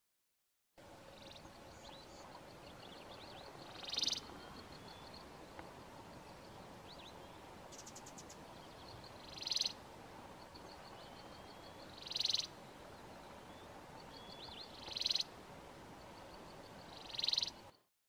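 Grey-backed cisticola song: a rapid run of high ticking notes that builds into a loud, buzzy trill, given five times at intervals of a few seconds.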